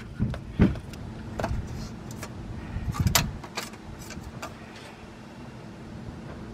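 Scattered light clicks and scrapes of a hand screwing a spin-on oil filter onto its housing and snugging it up, over a faint steady hum.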